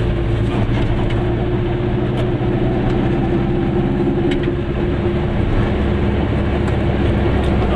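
Goggomobil's air-cooled two-stroke twin-cylinder engine running at a steady speed while the car cruises, heard from inside the cabin.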